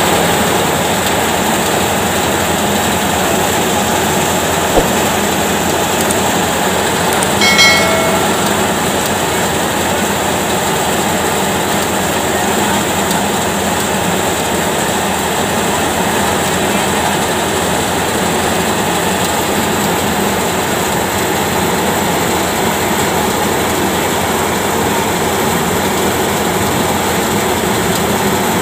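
Tractor-driven grain thresher running steadily, a continuous clattering machine noise together with the Fiat 640 tractor's four-cylinder diesel driving it under load. A brief high-pitched call cuts through about seven and a half seconds in.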